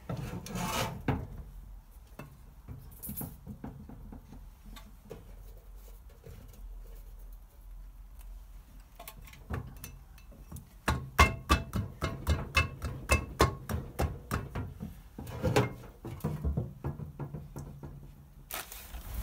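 Metal parts of a Citroën 2CV stub axle and its drum-brake backing plate clicking and knocking as they are worked onto the gearbox by hand. A quick run of sharp clicks, about five a second, comes in the second half.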